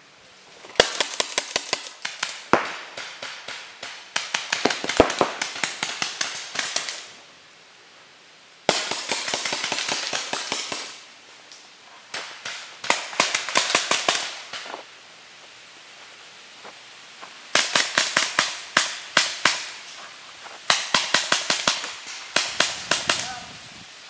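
Paintball markers firing in rapid volleys, several shots a second, in about six bursts a second or two apart.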